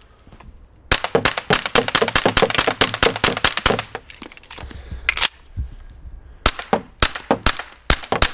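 A 9 mm pistol firing Arex MTX marking training rounds in rapid succession, a fast string of sharp shots that slows to a few spaced shots midway and then speeds up again. The rounds cycle the pistol reliably through a full magazine.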